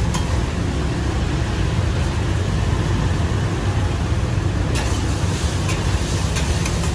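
Steady rumble of street traffic, motorbikes and cars passing close by. Several light clinks of metal utensils come in the second half.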